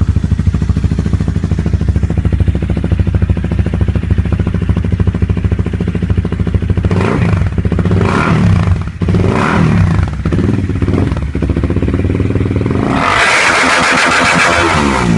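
Honda CBR250R's single-cylinder engine running loud through a Hurricane aftermarket sport exhaust tip. It idles steadily, is blipped several times from about seven seconds in, then is revved and held high near the end.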